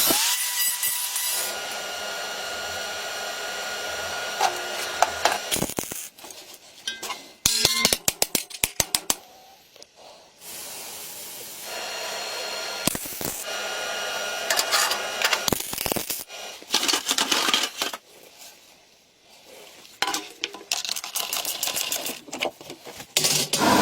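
Workshop tool work in a run of short cuts: a power tool whirring steadily, then a quick series of sharp metallic clicks and taps, with hissing stretches and scattered knocks.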